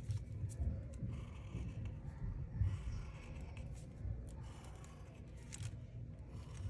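Sharpie permanent marker drawn along paper in short, scratchy strokes. A few light clicks and a low rumble come from the hands and paper moving on the table.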